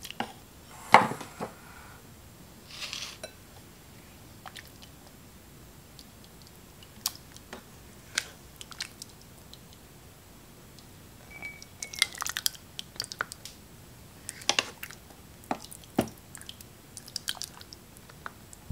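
Serving ladle scooping wet chili beans out of an electric pressure cooker's metal inner pot into a glass bowl: scattered clinks, knocks and scrapes with soft squishes of the beans, the sharpest knock about a second in and a short squeak about eleven seconds in.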